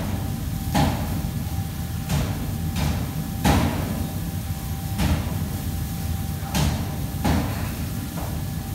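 Kitchen clatter: about seven sharp, irregularly spaced knocks and clanks, roughly one a second, over a steady low hum.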